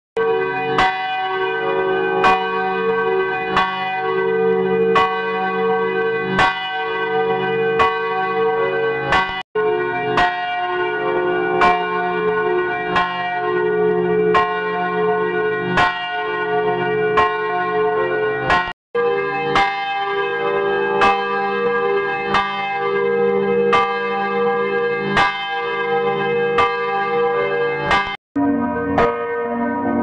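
A single church bell struck over and over, about once every three-quarters of a second, each stroke ringing on into the next. The ringing is cut by three brief silences, and after the last one, near the end, its tone shifts, as the recording is run through a new audio effect.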